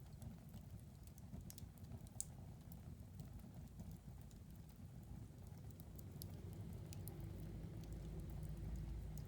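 Wood fire burning in a fireplace: scattered sharp crackles and pops, a dozen or so, over a low steady rumble of the flames.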